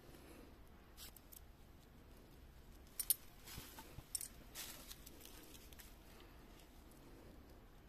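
Metal coins clinking against each other in a cupped hand as more are picked from the soil and added to the pile. Short sharp chinks, loudest about three seconds in, with a few more around one second and four seconds in.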